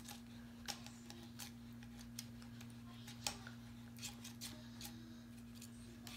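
Faint, irregular clicks and taps of a spoon against a cup while slime is mixed, over a steady low electrical hum.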